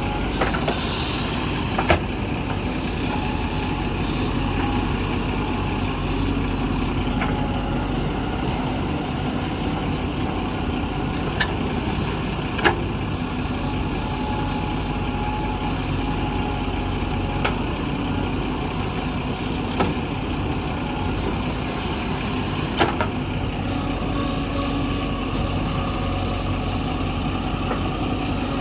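JCB backhoe loader's diesel engine running steadily at work, with a few sharp metallic knocks now and then and a faint whine that comes and goes.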